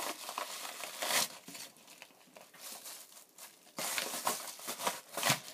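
Plastic packaging crinkling and rustling as it is handled. It eases off for a couple of seconds in the middle, then gets louder again near the end.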